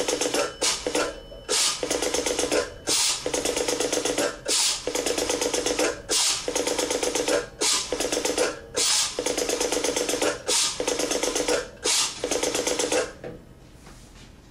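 A rotary dial on a 1920s Gray/Western Electric 50G payphone dialing a number. It is pulled round and let go about nine times, each return running off a quick train of clicks, and it stops shortly before the end.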